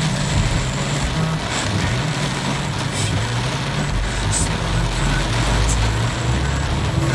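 Heavy rain beating on a car's roof and windscreen, heard from inside the moving car, over a low hum of engine and road noise that shifts in pitch.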